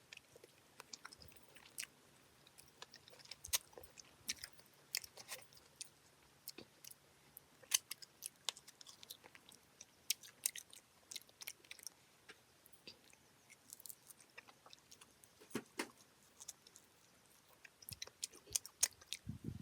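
A person chewing and eating close to the microphone: irregular small wet clicks and smacks, a few louder ones.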